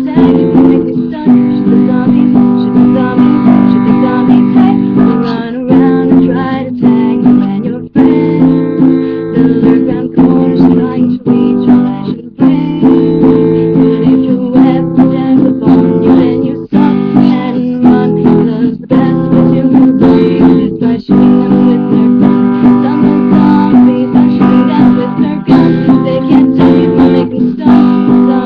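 Acoustic guitar strummed in a steady rhythm, chord after chord.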